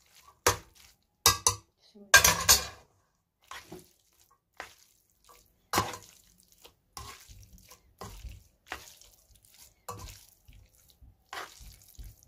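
A utensil stirring and tossing spaghetti in cream sauce in a metal pot: irregular clatters and scrapes of metal on the pot with wet squelching of the coated pasta. The loudest clatters come in the first three seconds, softer ones after.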